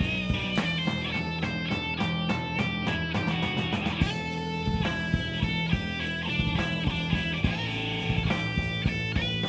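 A rock band playing live in an instrumental passage: an electric guitar plays a quick run of short notes over bass and drums.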